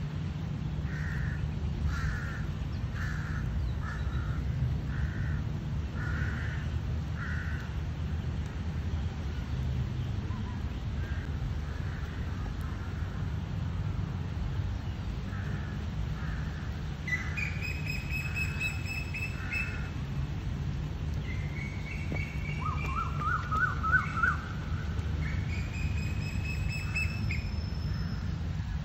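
Birds calling over a steady low rumble. It starts with a run of about ten short, evenly spaced calls, and from about halfway on there are clear whistled notes and a quick rising trill.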